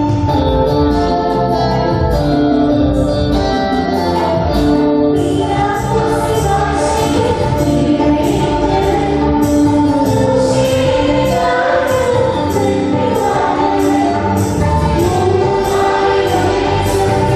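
Christian devotional hymn sung by voices with live keyboard and hand-drum accompaniment, with a steady beat and long held notes.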